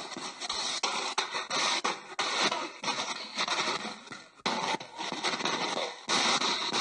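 A loud hiss of static, chopped by frequent crackles and short breaks every fraction of a second, with a faint steady whine underneath.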